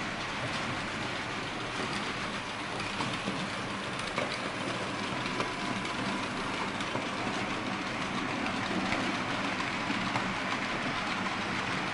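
Märklin H0 model Ludmilla diesel locomotive pulling loaded coal hopper wagons on Märklin M-track: a steady rolling rumble with scattered small clicks from the wheels on the track.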